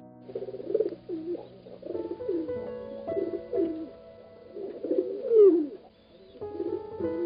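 Rock pigeons giving courtship coos, a run of low rolling coos repeated about five times, over soft instrumental background music.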